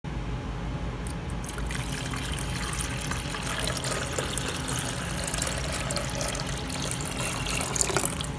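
Water poured from a glass carafe into the plastic water reservoir of a drip coffee maker, a steady trickling pour.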